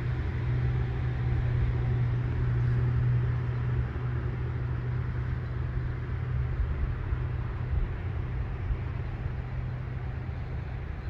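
Steady low outdoor rumble with a faint hiss, easing slightly after about four seconds.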